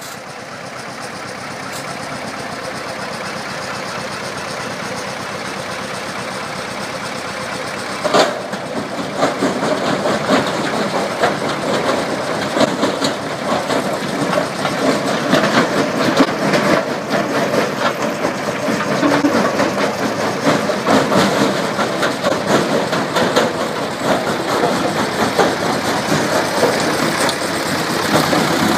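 CDI C60 mobile crusher running steadily. About eight seconds in comes one loud knock, and from then on there is a louder, rough, crackling and grinding as concrete sleepers are crushed and the broken rubble pours off the conveyor into a steel dumper skip.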